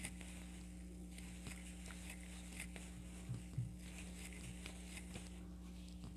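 Faint soft rustling and light scattered clicks of hands working yarn with a crochet hook, over a steady low electrical hum.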